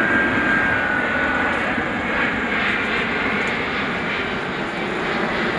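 Airbus A380 flying past low overhead, its four turbofan engines making a loud, steady jet rumble, with a faint high whine in the first second or two.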